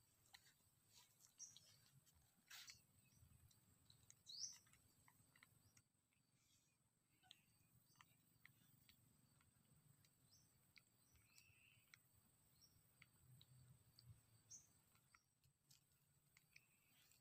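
Near silence: faint outdoor ambience with a steady high hiss, scattered soft clicks and a few short high chirps, the clearest a brief rising chirp about four seconds in.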